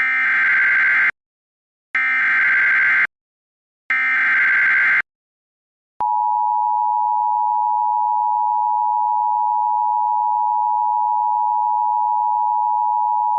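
Emergency Alert System broadcast for a Severe Thunderstorm Warning: three one-second bursts of warbling digital header data, evenly spaced. About six seconds in, the steady two-tone EAS attention signal begins and holds.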